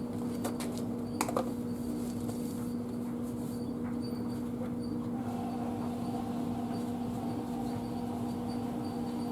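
A steady low hum at two pitches, with a few sharp clicks and light knocks about a second in as items are handled, and faint short high chirps repeating throughout.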